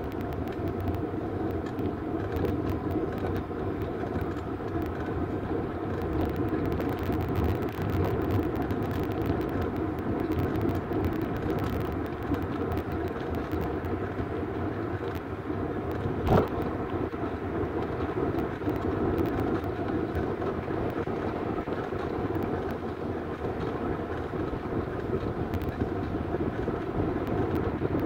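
Bicycle rolling along an asphalt trail: steady tyre and road noise with a faint steady hum, and one sharp knock a little past halfway.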